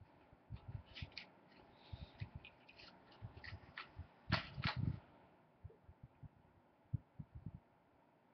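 A pipe smoker drawing on and handling a bent tobacco pipe close to the microphone: irregular soft clicks, lip smacks and low thumps. They are loudest about four to five seconds in and thin out to a few scattered thumps after that.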